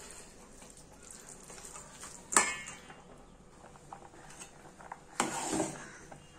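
A steel spatula stirring rice boiling in an aluminium pot, with metal clinking and scraping against the pot. There is one sharp clink with a short ring a couple of seconds in, and a longer scrape near the end, over a faint low hiss.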